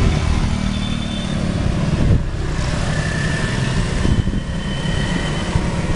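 Motorcycle engines and other road traffic running steadily close by on a town street.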